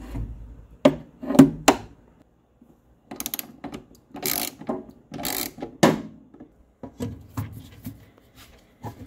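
Ratchet and socket clicking and rasping in short strokes as heavy battery cable lugs are tightened onto an inverter's battery terminals, with knocks from handling the stiff cables.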